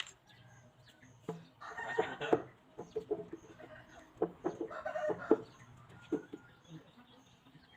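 Chickens clucking in two short bouts, with a few sharp knocks in between.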